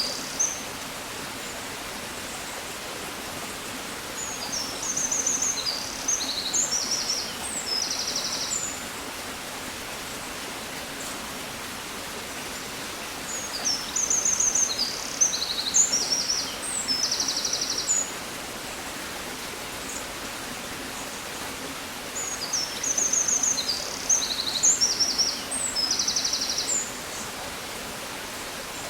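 A songbird repeats the same high song three times, about every nine seconds: quick chirps running into buzzy trills. Under it is a steady background hiss.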